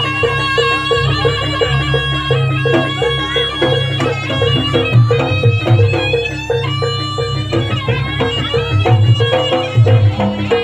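Jaranan accompaniment music: a reedy shawm-like wind instrument plays a melody of held notes over a steady quick percussion beat with deep gong-like bass.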